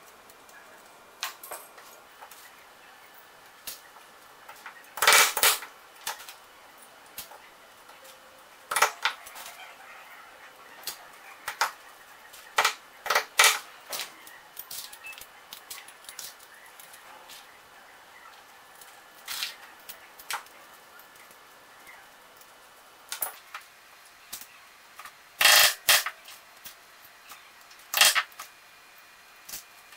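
Small metal parts and hand tools clicking and clattering on a workbench as nuts, washers and guide rails are fitted into an airgun's body. Sharp knocks come at uneven intervals, the loudest about five seconds in and a pair about twenty-five seconds in.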